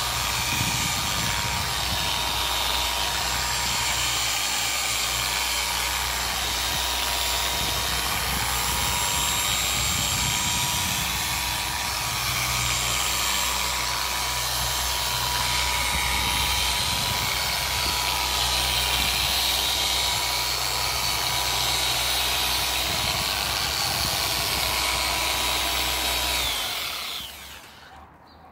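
Corded electric car polisher with a foam finishing pad running steadily at low speed, working a glaze into a car's painted door panel. Near the end it is switched off and winds down with a short falling whine.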